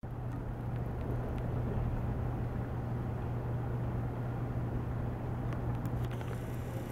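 Howler monkeys roaring, heard as a steady low drone.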